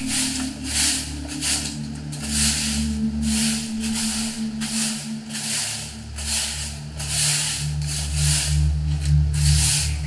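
A long-handled broom sweeping a dirt courtyard, one scratchy stroke about every second, over a low steady hum.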